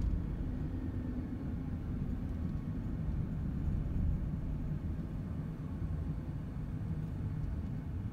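A car driving slowly on city streets: steady low engine and tyre rumble, with no distinct events.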